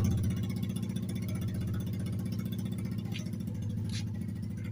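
Yamaha Aerox V2 scooter's single-cylinder engine idling steadily through an aftermarket Akrapovič exhaust, settling down in the first second after a blip of the throttle.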